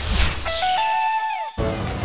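Cartoon transition whoosh falling steeply in pitch over the closing notes of a jingle, cut off sharply about one and a half seconds in, after which other background music comes in.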